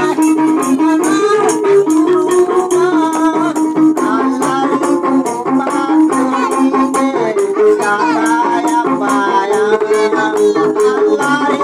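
Gambus music played live: hand-beaten frame drums keep a fast, steady rhythm under a sustained melody line while a man sings into a microphone.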